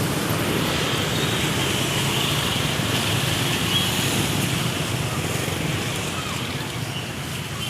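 Steady rumble and hiss of a passing bus's engine and tyres, slowly fading as it moves away.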